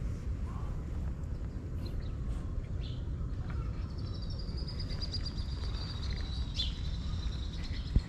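Steady low outdoor rumble with a thin, high-pitched wavering chirp or trill through the second half, typical of a bird calling, and one sharp click near the end.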